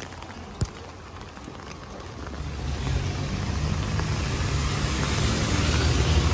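Light rain ambience with a few sharp drips, then the noise of car tyres on a wet road swelling from about two seconds in, with a low rumble under it, growing louder as traffic passes close by.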